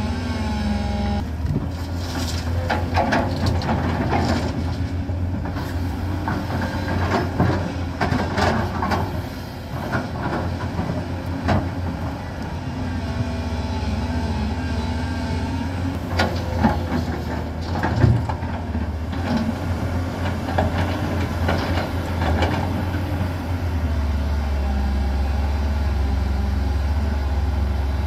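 Heavy diesel engines of JCB crawler excavators and dump trucks running steadily, with repeated clanks and rattles as the steel buckets dig and load earth and rock into a tipper truck's body. The low engine drone grows stronger near the end as the excavator swings a loaded bucket over the truck.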